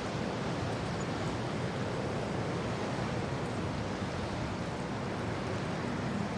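Wind and rain: a steady, unbroken rush of wind with rain falling, holding an even level throughout.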